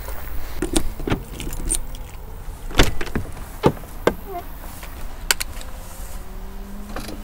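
Keys jangling, then sharp clicks and clunks as the lock and latch of a Bailey motorhome's habitation door are unlocked and the door is pulled open. A faint low whir begins near the end.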